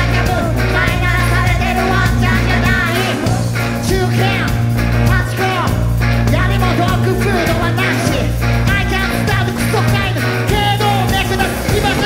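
Live rock band playing loudly, with drums, guitars and steady low bass notes, and a voice singing over it.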